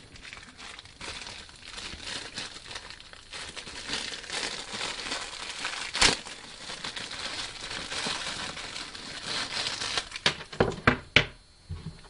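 Thin clear plastic packaging crinkling and rustling as it is pulled off a new pet brush and comb, with a sharp snap about halfway through and a few separate clicks near the end.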